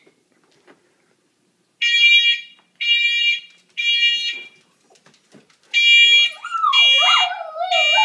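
Smoke alarm sounding its three-beep pattern twice, each a shrill high tone about half a second long, with a pause between the sets. During the second set a small dog starts howling at it, a wavering howl that rises and falls.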